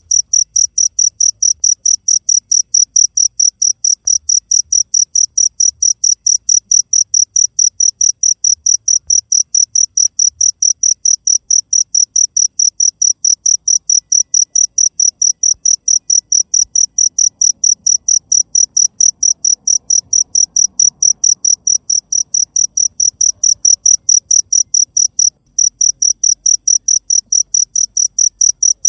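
A cricket chirping loudly and steadily, about four high chirps a second, with one brief break near the end.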